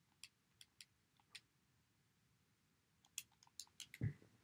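Faint clicks of handheld calculator keys being pressed: a handful spaced out over the first second and a half, then a quicker run of presses about three seconds in. A dull thump, the loudest sound, comes just after them.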